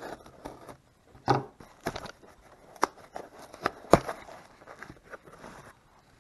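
A cardboard box's tape being slit with a blade and its flaps pulled open: scraping and crackling cardboard with several sharp clicks, the sharpest about four seconds in.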